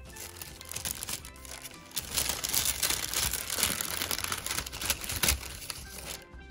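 Paper cookie bag crinkling and rustling as fingers reach inside it for a cookie, loudest through the middle, over light background music.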